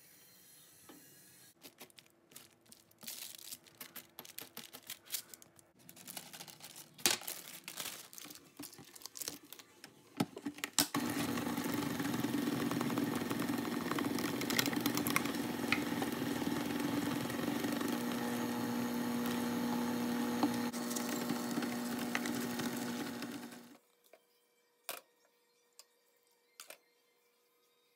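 Electric hand mixer running steadily with its beaters in a glass bowl, starting about 11 seconds in and cutting off suddenly about 12 seconds later. Before it, irregular clicks and crackles; after it, a few sharp ticks.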